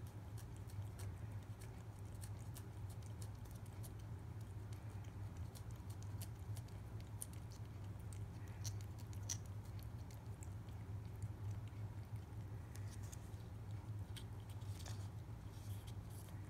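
A cat licking purée treat from a squeeze tube: many faint, quick wet clicks of its tongue, irregular in pace, over a steady low hum.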